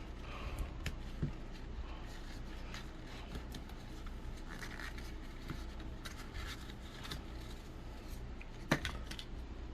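Hands working an item out of its packaging: irregular rustling, scratching and small clicks, with one sharp click near the end.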